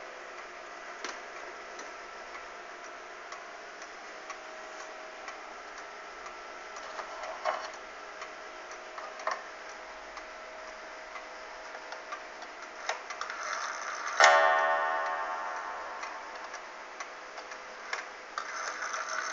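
1894 Ansonia wall clock: scattered ticks and clicks from the movement as the hands are set. About 14 seconds in, the clock sounds one loud strike on its coiled wire gong, which rings and slowly dies away. The gong begins to ring again near the end.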